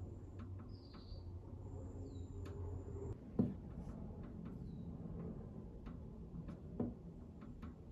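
Soft pastel stick working on sanded pastel paper: faint scratching with scattered small taps, two sharper knocks about three and a half and seven seconds in, and a few brief high chirps over a low steady hum.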